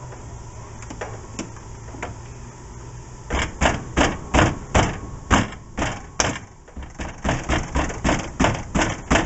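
Quiet for the first three seconds, then a run of sharp knocks, about three a second, as the window regulator is worked into place inside a VW Beetle's door.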